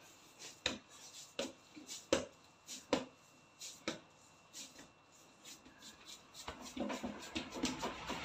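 Light, sharp taps of kitchen work on a work surface, irregular and roughly two a second. Near the end they give way to a busier stretch of rubbing and handling noise.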